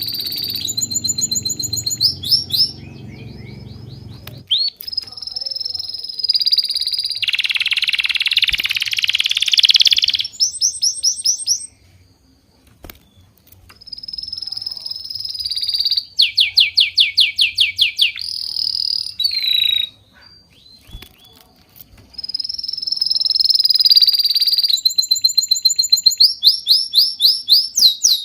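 Birdsong: phrases of high, drawn-out whistled notes alternating with fast runs of short repeated notes, with brief pauses between phrases.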